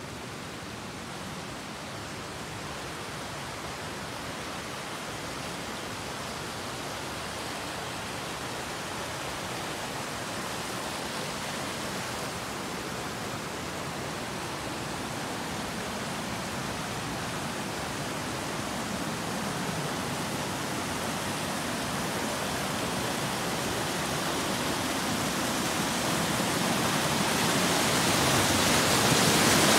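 Rushing water of a mountain stream cascading over rocks: a steady hiss that grows steadily louder as it draws nearer, loudest near the end.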